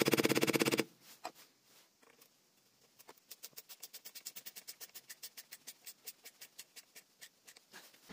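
A loud, fast rattle that stops about a second in. After a pause, a steady run of sharp light clicks, about six a second, as a screwdriver turns a screw through a plastic bottle-neck ring into a wooden broom handle.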